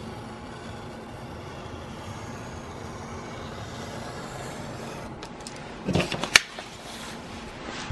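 Snap-off utility knife cutting along a sheet of printed paper labels on a bare tabletop, over a steady background hum. About six seconds in, a short, loud burst of paper rustling and clicks as the cut strip of labels is handled.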